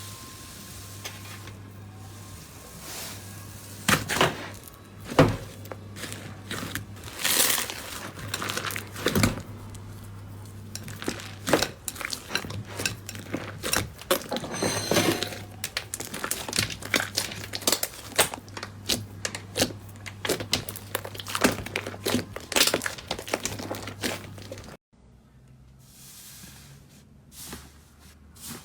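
Slime being squeezed and stretched by hand, making dense irregular crackling and popping clicks. A steady low hum underneath stops suddenly about 25 seconds in, and the handling sounds that follow are quieter and sparser.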